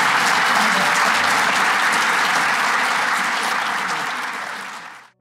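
Audience applauding, fading out over the last second or so.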